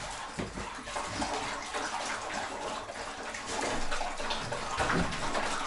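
Dogs lapping up broth from a bowl: a busy, irregular wet splashing and slurping.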